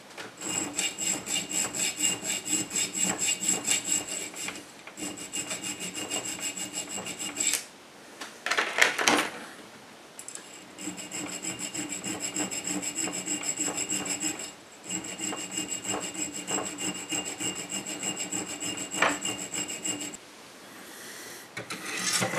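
Hand file worked in quick, even strokes, about four a second, across a metal bar clamped in a bench vise. The bar rings with a steady high tone under the strokes. The strokes come in runs with short pauses, and there is a louder irregular scrape about nine seconds in.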